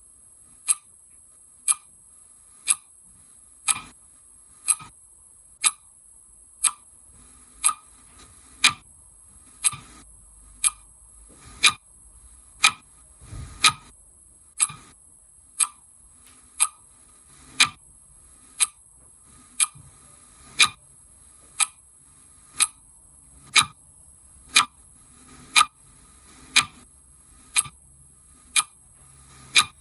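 Clock ticking steadily at about one sharp tick a second. A soft low thump comes about halfway through.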